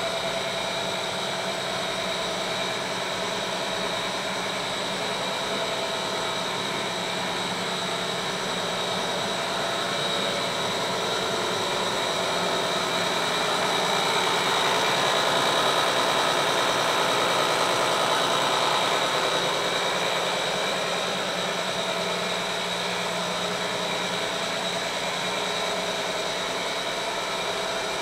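Plastic granule-making line (extruder with strand pelletizer) running steadily: a continuous mechanical hum with a high steady whine over it, getting somewhat louder in the middle, near the strand cutter.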